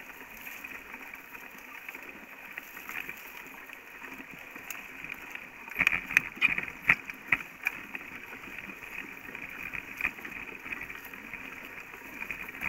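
Mountain bike riding over a rough dirt trail: a steady rolling rattle, with a burst of sharp knocks and clatter about six seconds in as the bike jolts over bumps.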